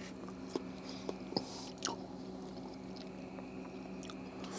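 A slice of smoked meatloaf being broken apart by hand on a plate: a few faint, soft clicks and moist tearing sounds, over a steady low hum.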